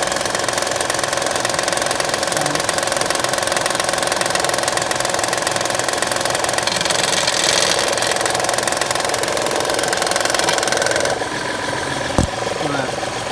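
2009 Honda Pilot 3.5 L V6 running with the timing cover off, making a fast knocking rattle from a bad timing belt tensioner jumping around, a sound mistaken for a failing engine bearing. About eleven seconds in the rattle drops off as the tensioner is held, followed by a single sharp click.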